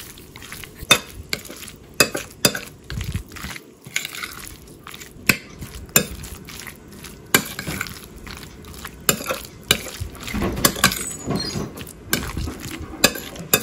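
Metal spoon stirring chopped shrimp and mayonnaise in a bowl, striking the bowl in repeated sharp clinks at irregular intervals.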